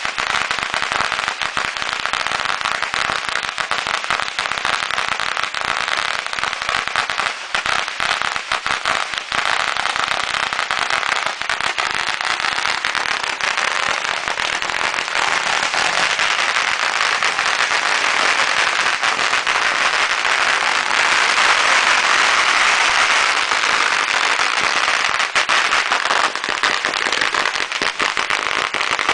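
Fireworks crackling in a dense, rapid, unbroken stream of sharp pops that goes on for about half a minute, getting a little louder in the second half.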